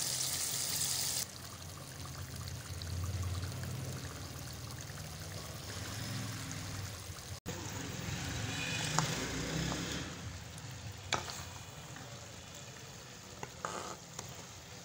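Hot potato, pea and radish-pod curry sizzling in the pot as a wooden spoon stirs and scoops it. The sizzle drops suddenly about a second in. In the second half come a few sharp knocks of the spoon.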